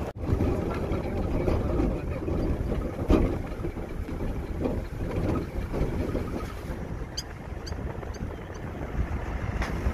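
Wind buffeting the microphone over a low, uneven rumble, with a jolt about three seconds in. A few short high chirps come between about seven and eight and a half seconds in.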